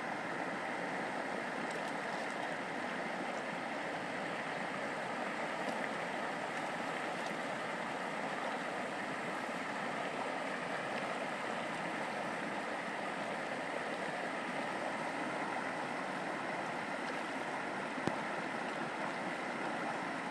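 Steady rushing of river water flowing over a shallow riffle. A single faint click comes near the end.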